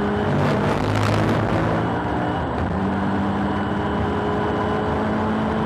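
Interior sound of a boost-up-tuned Subaru VAB WRX STI's turbocharged flat-four (EJ20) at racing speed. The engine note dips with a brief hiss about half a second in, then comes back and runs steadily.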